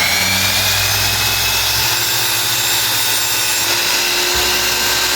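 DeWalt DWS780 12-inch sliding compound miter saw's universal motor and blade running at full speed: a steady, high whine, just finished spinning up at the start.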